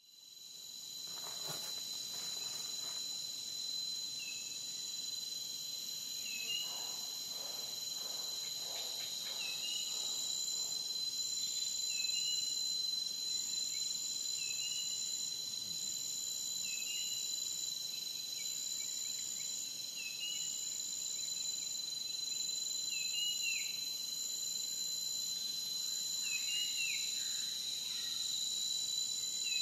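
Steady insect chorus of several high, unbroken trills, with a short chirp repeating every second or two; it fades in at the start.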